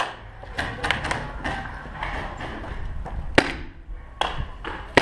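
Scattered sharp pops of paintball markers firing and paintballs hitting, about half a dozen spread out, the loudest about three and a half seconds in.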